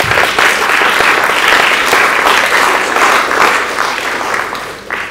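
Audience applauding, easing off near the end.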